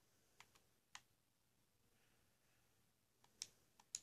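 Faint button clicks over near silence: three quick clicks in the first second and four more near the end.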